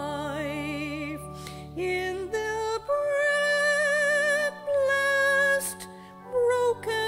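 Church hymn music: a melody of long held notes with strong vibrato over sustained low accompaniment chords, with short breaks between phrases.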